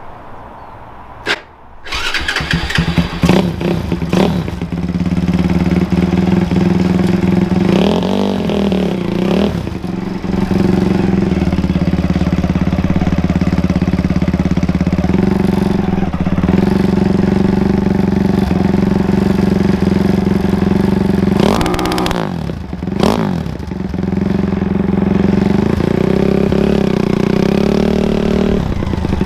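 Racing lawn mower's engine cranked and catching about two seconds in, then running loud and steady at raised revs for the two-step launch-limiter check. The revs drop and rise again a couple of times.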